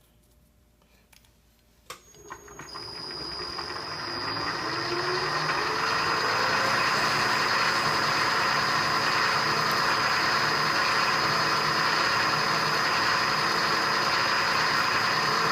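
Milling machine spindle switched on with a click about two seconds in, spinning up over a few seconds with a rising whine, then running steadily with a number 29 drill in the chuck.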